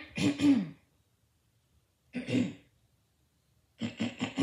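A young woman clearing her throat several times, in three short bouts with gaps of a second or more between them.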